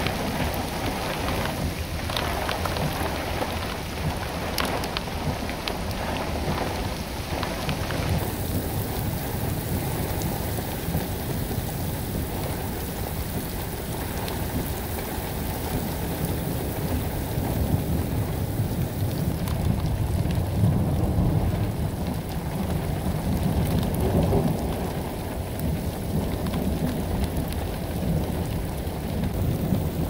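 Heavy thunderstorm rain pouring steadily onto pavement, with a deep rumble of thunder underneath. The sound changes abruptly about eight seconds in to a heavier low rumble, which swells in the second half.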